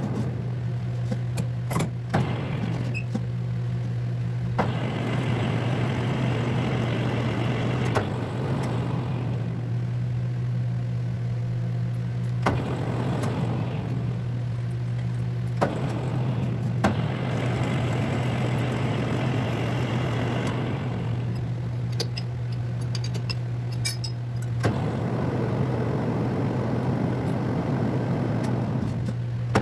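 Metal lathe running with a steady motor hum while a thread is cut, 8 threads per inch, on a 1-inch round bar for a stud bolt. The cutting noise comes in four passes of a few seconds each, with sharp clicks in between.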